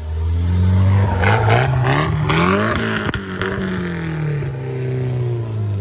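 Turbocharged Nissan 240SX engine revved once: its pitch climbs for about two seconds, peaks with a sharp crack about three seconds in, then falls back toward idle.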